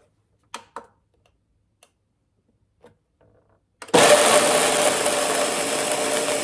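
Two light clicks as the blender's lid is set in place. About four seconds in, a high-powered countertop blender switches on at full speed and runs steadily and loudly, grinding a jar of whole peanuts to a crumbly powder.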